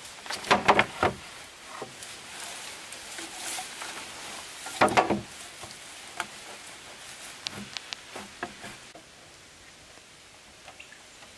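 Hollow bamboo poles knocking together as one is laid onto a stack of others: a quick run of clattering knocks about half a second in, a louder cluster around five seconds, and a few lighter taps later.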